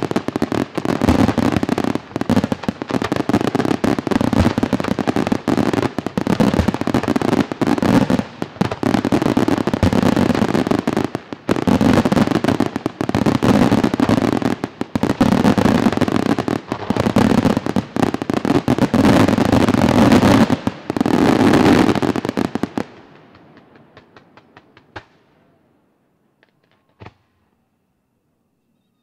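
Aerial firework shells bursting in a dense, continuous barrage of sharp reports, many a second. About 22 seconds in it stops, dying away to a few faint crackles, with one last pop about 27 seconds in.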